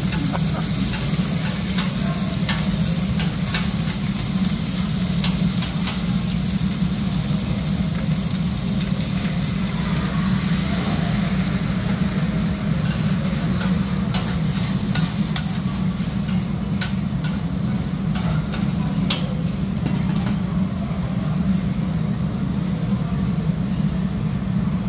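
Food frying on a hot steel griddle, a steady sizzle, with scattered clicks and scrapes of metal scrapers and a spoon against the plate. A steady low hum runs underneath.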